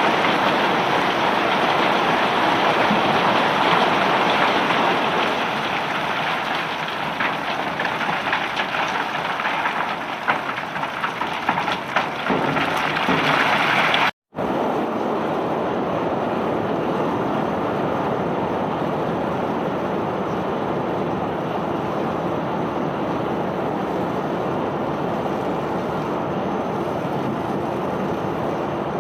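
Bulk cargo pouring and rattling off a self-unloading barge's discharge conveyor: a dense, steady rush with many small crackling impacts. After a sudden cut about halfway through, a smoother, steadier rush of unloading machinery follows, with a faint low hum.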